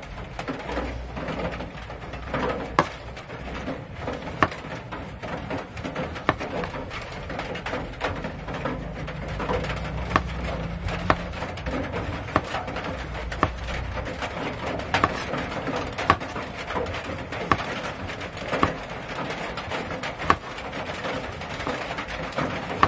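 Kitchen knife slicing peeled bananas into thin rounds on a wooden chopping board: a string of irregular knocks as the blade cuts through and meets the board.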